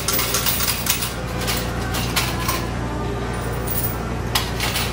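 Scattered metallic clinks and clicks of coins (quarters) being handled, the sharpest near the end, over a steady low hum of laundromat machines.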